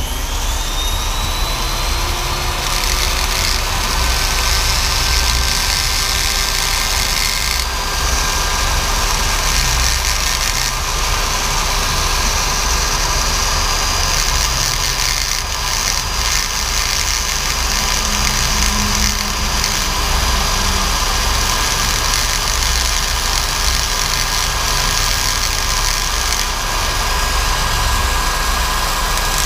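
Hanging flex-shaft rotary tool running at steady speed with a rough carbide bit, grinding the edge of a stock LS fuel injector to clean it up after its cap has been cut off. A steady high whine over a gritty hiss.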